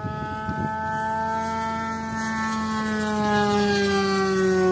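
Radio-controlled model Corsair plane flying overhead, its motor and propeller giving a steady high whine that slowly drops in pitch and grows louder toward the end as it passes.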